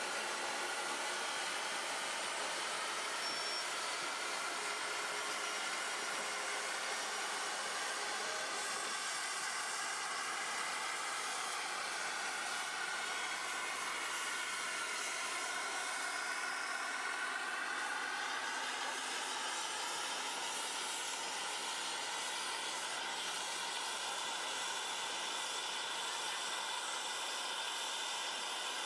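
A steady rushing hiss, its tone slowly sweeping up and down.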